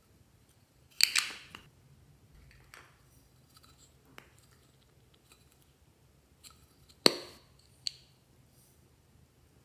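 Small plastic containers handled and pried open by hand: a few sharp plastic snaps and clicks. The loudest come about a second in and just after seven seconds, with a second snap shortly after that, and small ticks and rustles between.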